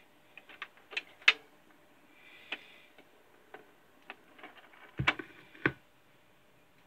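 Clicks and knocks from a record turntable being set going for a 45 rpm single, as the platter spins up and the tonearm is moved across. There are two heavier, deeper thumps near the end.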